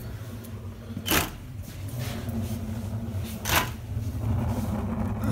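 Oscillating multi-tool shaker on a sawdust hopper rattling the grate in short bursts, twice, about two and a half seconds apart, on an Arduino-set delay. A steady low rumble underneath grows louder near the end.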